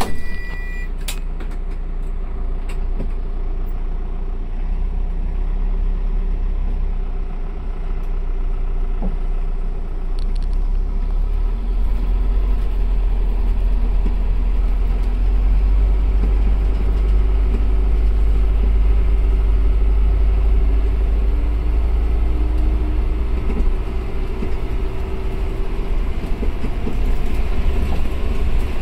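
Cabin sound of the Asa Kaigan Railway DMV, a minibus-based dual-mode vehicle, driving on the road in bus mode: a steady engine and road rumble whose engine note rises gradually in the second half. A short electronic beep sounds right at the start.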